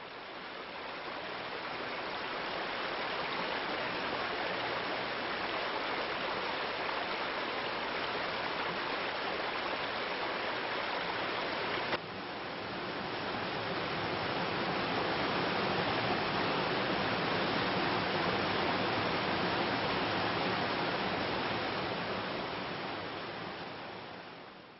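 Steady rushing of river water, fading in at the start. About halfway through it cuts abruptly to another stretch of rushing water, which fades out at the end.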